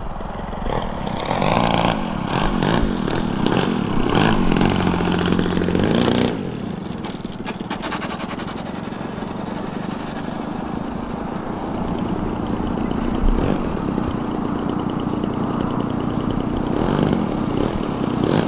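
Radio-controlled aerobatic plane's engine and propeller running at high, varying throttle during low flight, then cutting back to a steady idle about six seconds in as the plane lands and rolls, with a brief rise in throttle near the end.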